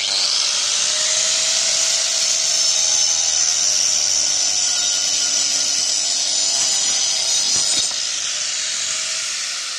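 Angle grinder fitted with a wood-cutting saw disc, starting abruptly and running at full speed with a high whine as it cuts through a wooden plank. About eight seconds in the cut finishes and the unsupported offcut drops and splits off. The tool eases, and its pitch starts to fall near the end.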